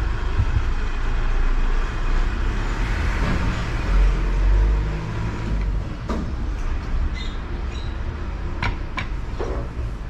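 Steady low rumble of road traffic, swelling about four seconds in as a heavy vehicle such as a bus passes, with a few sharp clicks later on.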